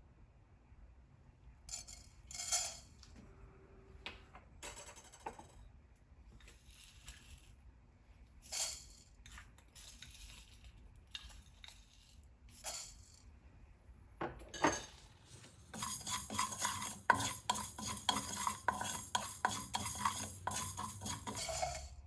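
Metal kitchen utensils clinking and knocking against pots and pans, a few separate clatters at first. From about two-thirds of the way in there is quick, continuous scraping and clinking of a spoon stirring in a pan.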